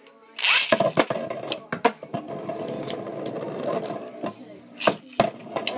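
Beyblade spinning tops launched into a plastic stadium with a loud rip about half a second in, then spinning on the stadium floor with a steady whirr. Sharp clicks come now and then, several in the first two seconds and two close together near the end.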